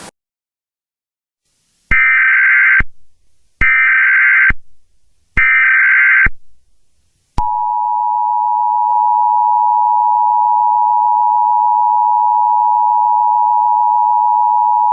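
Emergency Alert System SAME header: three short bursts of warbling data tones, each under a second long, about two seconds apart. About seven seconds in, the steady two-tone EAS attention signal (853 and 960 Hz) begins and holds.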